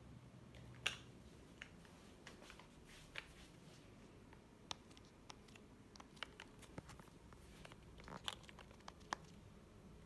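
Faint scattered clicks of an air-conditioner remote control's buttons being pressed, with light handling noise, over near-silent room tone.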